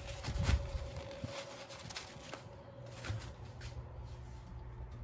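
Light handling noises at a bench vise: a paper towel rubbing over the vise's plastic soft jaws, with a low thump about half a second in, then a few faint clicks and taps as a small steel part is handled against the jaws. A faint steady hum runs underneath.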